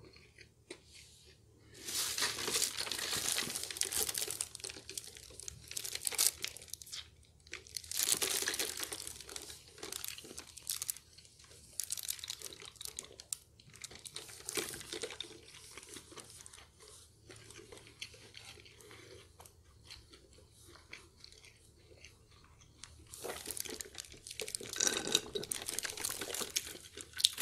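Close-miked eating sounds: chewing McDonald's fries, with repeated bursts of crinkling paper, loudest about two seconds in and again near the end.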